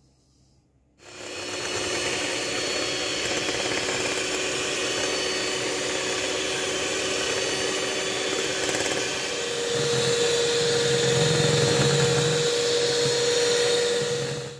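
Electric hand mixer running steadily, its beaters whipping eggs and sugar. It starts about a second in, a steady hum comes in and it grows slightly louder about ten seconds in, and it cuts off suddenly.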